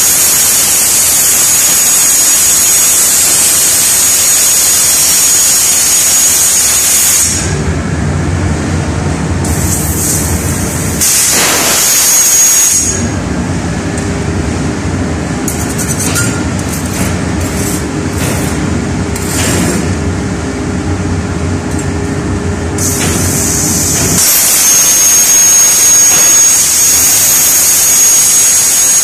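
CNC plasma cutting torch cutting steel plate: a loud, steady hiss with a thin high whistle running through it. About seven seconds in the hiss falls away and a lower, steady machine hum takes over, and the hiss and whistle return near the end.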